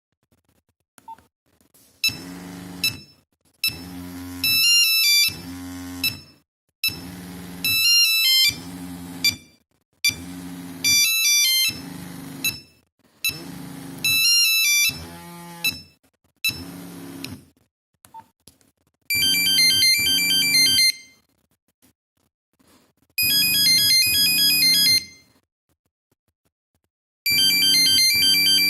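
Nokia 3410 mobile phone playing its monophonic ringtones one after another through its small speaker: a melody of short beeping phrases with gaps between them, then a different, busier tone in two bursts, and a third starting near the end.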